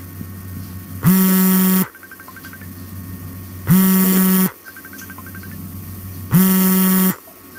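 A loud low buzz sounding three times, each lasting under a second and coming about every two and a half seconds, with a slight upward swoop as each one starts. A faint steady hum lies beneath.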